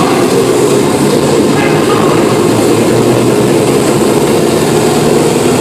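Hardstyle dance music played loud over a rave's sound system, coming through as a dense, noisy, distorted wash with no clear beat standing out.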